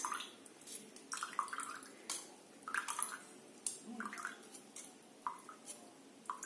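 Small drips and splashes of liquid with light clicks and scrapes of a kitchen strainer, as boiled vasaka leaves are pressed to squeeze the last of the decoction through into a cup. The sounds come irregularly, about a dozen short ones.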